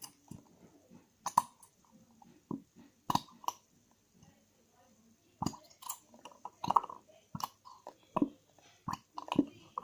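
White glue being squeezed out of its bottle into a bowl: irregular wet squelches and sputtering clicks.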